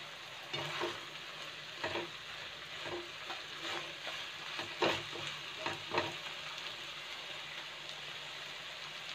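Chicken and banana blossom sizzling in a stone-coated nonstick wok, stirred with a spatula. Scraping strokes come through the first six seconds or so, then only the steady sizzle remains.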